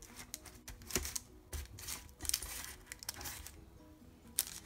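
Baking parchment rustling and crinkling as burger buns are picked up and moved on a baking tray, with a few sharp clicks and taps. The handling comes in irregular bursts, with the loudest about a second in, halfway through and near the end.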